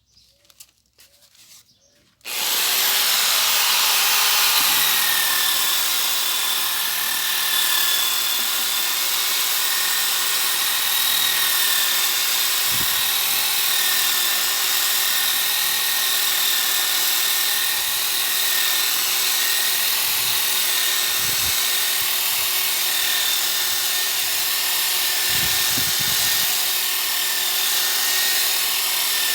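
Electric power tool spinning a 120-grit 125 mm sanding disc against wood. It starts about two seconds in and then runs steadily, a constant motor whine over the hiss of the abrasive.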